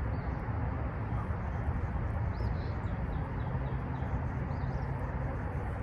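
A few faint bird chirps, a short run of them about two seconds in and another near the end, over a steady low outdoor rumble.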